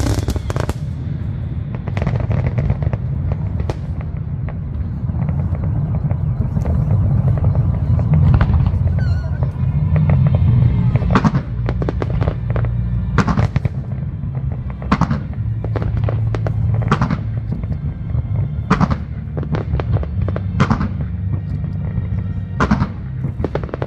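Aerial fireworks display: a continuous low rumble of shell bursts with sharp bangs and crackles on top. The bangs come thick and fast at first, then settle to about one every second or so in the second half.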